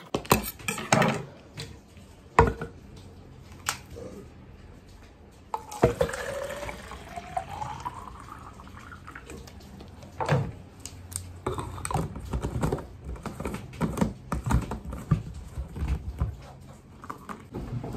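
Water poured from a glass pitcher into a plastic water bottle starting about six seconds in, the pitch of the filling rising as the bottle fills. Around it, sharp clicks and knocks of plastic containers and the bottle's cap being handled on a countertop, the cap pressed on near the end.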